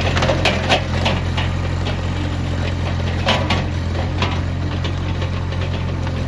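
Mini skid steer loader's small engine running steadily, with scattered sharp knocks and clatter over it, bunched in the first second and again around three to four seconds in.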